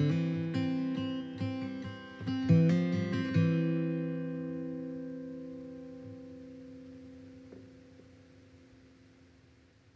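Acoustic guitar music: picked notes, then a final strummed chord a few seconds in that rings out and fades away slowly.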